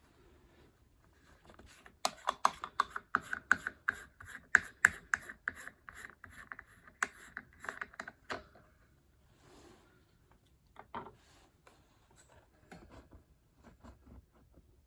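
Rapid, even clicking, about four clicks a second for around six seconds, then scattered clicks and light knocks: the motor housing of a Cool Breeze 12-inch oscillating table fan being taken apart by hand.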